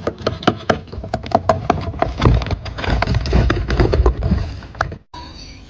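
Pet rodent gnawing and scratching at a hole it has torn in its enclosure wall: rapid, irregular clicks and scrapes that cut off suddenly about five seconds in.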